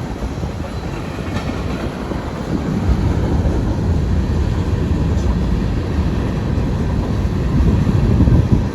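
Union Pacific grain train rolling past: a steady loud rumble of freight car wheels on the rails.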